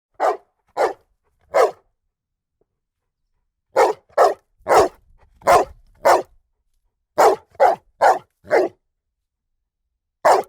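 A dog barking: about a dozen short, sharp single barks in quick clusters of three to five, with pauses of a second or two between the clusters.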